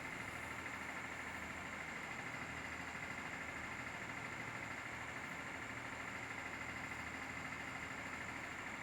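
Steady mechanical hum with no distinct knocks or changes.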